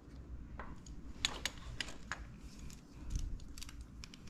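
Light clicks and taps of small metal rearset parts knocking together as they are handled and fitted, about half a dozen separate ticks, most of them in the first half.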